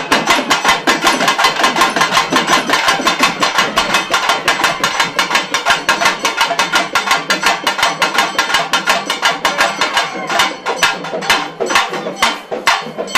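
Drums beaten hard in a fast, steady rhythm of about six sharp strokes a second, the beat turning a little uneven near the end.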